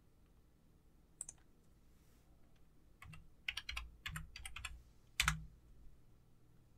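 Computer keyboard typing: a single faint tap about a second in, then a quick run of keystrokes between about three and five and a half seconds in, the last one the loudest.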